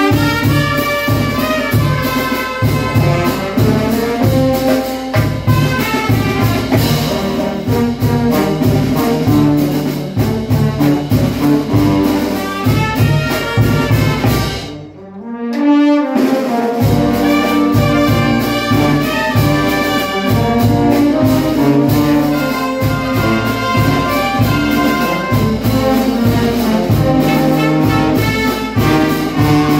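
Brass band playing: trumpets, a sousaphone and other brass over a steady beat of bass drum, snare drum and hand cymbals. The music breaks off briefly about halfway through, then starts up again.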